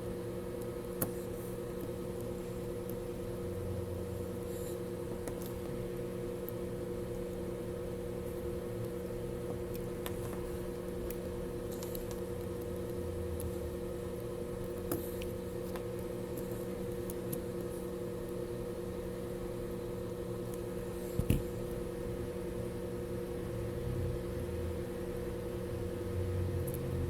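Steady electrical hum of bench equipment, with a few small clicks and taps of tools on the jump starter's board while a new micro USB charging port is fitted.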